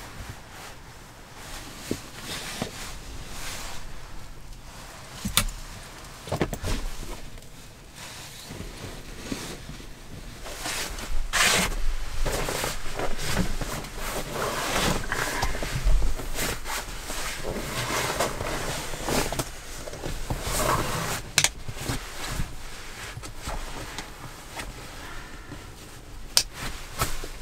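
Bedding being handled in a small camper cabin: a sleeping bag's fabric shell and a sleeping mat rustling and being moved, with scattered knocks and thumps.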